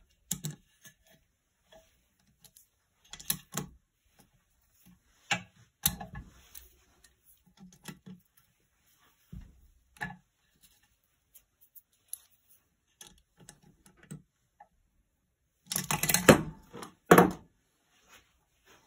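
A spanner and metal generator parts being handled during dismantling: scattered clinks, clicks and knocks of tool on bolts and casing. About three-quarters of the way through comes a louder burst of clatter, then a sharp knock.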